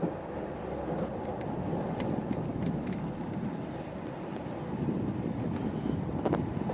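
Intercités passenger train running at speed, heard from inside the coach: a steady low rumble of wheels on rails, with scattered light clicks and a sharper click about six seconds in.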